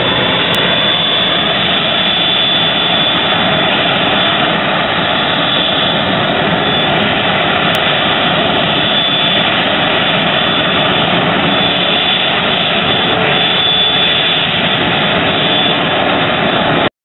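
North American F-86 Sabre's jet engine idling steadily on the ramp with a high whine over its rushing noise, in its cool-down run before shutdown.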